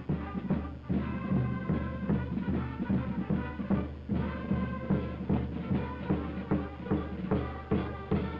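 Military march music played by a band, with a steady drum beat a little over two beats a second under sustained band melody.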